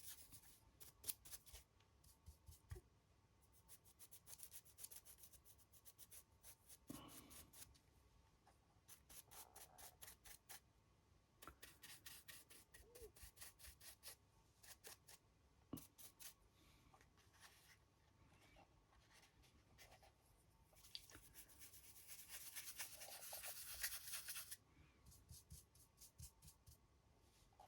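Faint, quick scratchy strokes and dabs of a paintbrush working paint onto a small 3D-printed model figure. A longer stretch of continuous rubbing comes about three quarters of the way through.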